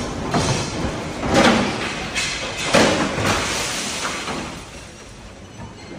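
Storm noise with a run of loud bangs and rattles, about five in the first three and a half seconds, dying down after about four and a half seconds.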